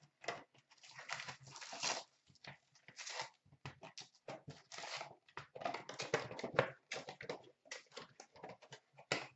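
Hands tearing open a cardboard hobby box of hockey trading cards and pulling out the wrapped packs: irregular rustling, scraping and crinkling of cardboard and pack wrappers.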